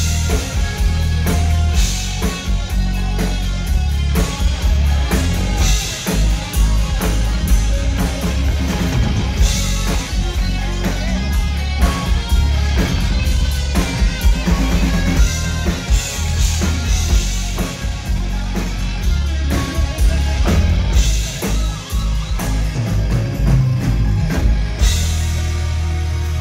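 Live rock band playing: drum kit, electric guitar, bass guitar and keyboard, amplified through the stage PA, with a heavy, steady low end.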